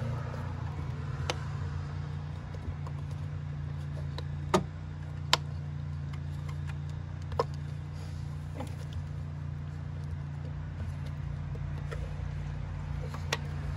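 A few sharp clicks and knocks, two of them louder about halfway through, as a hand works down among the engine parts to pull out a rubber spark plug boot, over a steady low hum.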